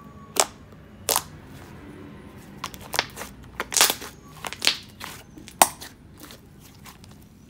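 Thick, creamy clay slime being kneaded and pressed by hand, giving several sharp pops and crackles as air pockets squeeze out. The pops come at irregular intervals, the loudest a little past halfway.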